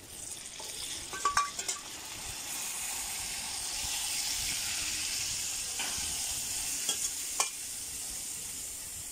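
Adobo marinade of soy sauce and vinegar poured into a hot wok of browned chicken and pork, sizzling and hissing as it hits the hot metal. The sizzle builds after about a second and is strongest midway. A few sharp metal clinks come through it.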